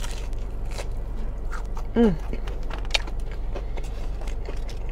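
Close-up chewing of battered fried fish, with wet mouth clicks and small crunches throughout and a short falling "mm" about two seconds in, over a steady low hum.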